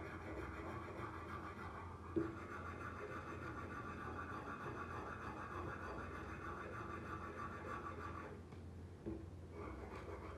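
A small stiff-bristled hand brush scrubbing rust off a rusty steel knife blade: a steady, rapid scratching that stops about eight seconds in. One sharp knock about two seconds in, and a smaller one near the end.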